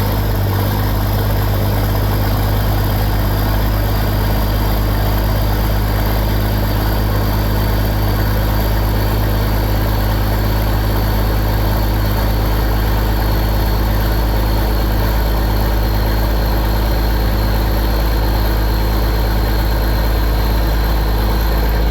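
Combine's diesel engine idling steadily just after a jump start, warming up.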